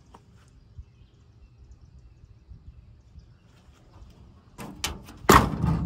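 Faint outdoor background, then a few sharp clicks and a loud clunk near the end as someone moves about in the truck's cab.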